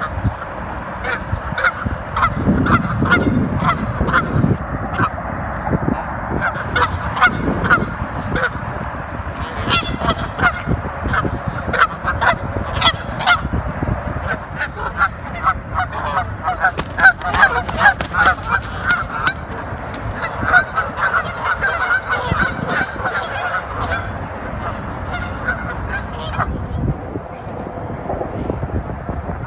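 A pair of Canada geese honking, many short, sharp calls in quick succession, thinning out near the end.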